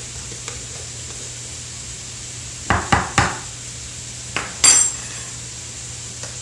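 Spoon knocking against a bowl or jar while minced garlic is spooned onto potatoes: three quick knocks a little under halfway in, then a sharper ringing clink about a second later.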